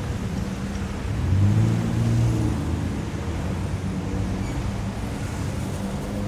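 City street traffic: a steady low rumble of passing vehicles, with one vehicle's engine hum growing louder and fading away again about one to two and a half seconds in.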